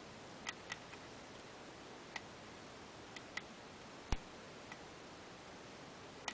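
Small sharp clicks of a lock pick and tension tool working the pin stack of a Russwin rim cylinder, irregularly spaced, about eight in all. The loudest comes about four seconds in, a sharper tap that carries down into the low end.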